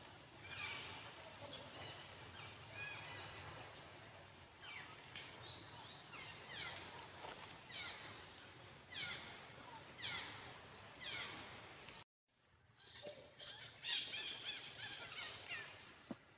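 Faint high-pitched animal calls, each sliding down in pitch, repeated about once a second. They break off in a short gap of total silence about twelve seconds in, then carry on.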